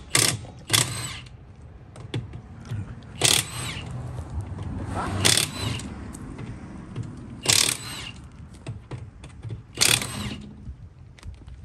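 Impact wrench in six short rattling bursts, loosening the lug nuts on a car's rear wheel: two close together at the start, then one about every two seconds.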